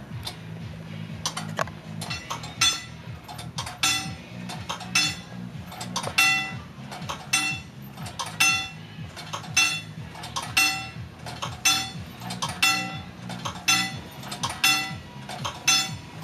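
Wigwag railroad crossing signal in operation: its bell is struck about once a second, each strike ringing on, with lighter mechanical clicks from the swinging mechanism between strikes.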